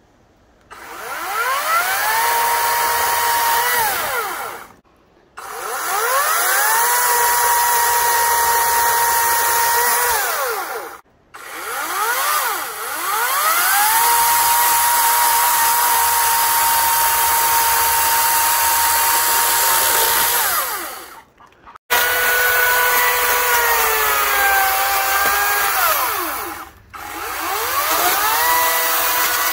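EGO 18-inch battery-powered chainsaw running in several separate bursts, each spinning up to a steady high electric whine and winding down as the trigger is released, with the chain cutting through wood. In one burst near the end the pitch sags and wavers as the chain is loaded in the cut.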